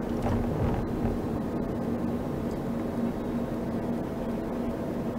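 A car driving, heard from inside its cabin: steady engine and road noise with a low, even hum.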